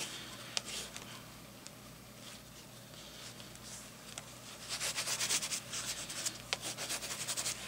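Light green water-soluble crayon scratching across journal paper in short upward strokes. It is faint at first, then becomes a quick, dense run of strokes from a little past halfway.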